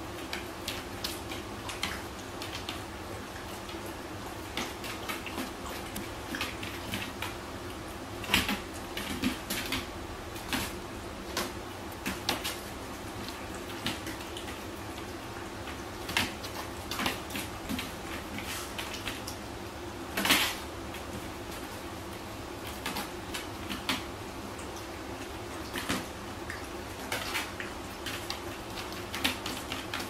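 Two dogs moving about a food bowl on a hard floor: scattered light clicks and taps, with a louder clatter about twenty seconds in, over a steady low hum.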